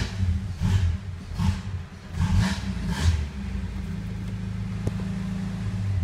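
Dodge Dakota's 2.5-litre four-cylinder engine being revved in about five quick throttle blips over the first three seconds, then running steady at a raised idle. It doesn't want to idle.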